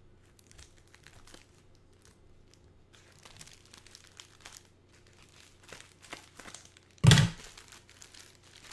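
Plastic bubble wrap around a potted plant crinkling as it is handled and cut open with scissors. Scattered faint crackles are followed by one loud crackle about seven seconds in.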